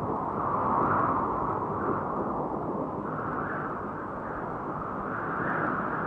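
Small quadcopter drone (DJI Phantom 1) in flight, heard from its own onboard GoPro: a steady, dull rushing of the propellers with little treble that swells slightly a couple of times.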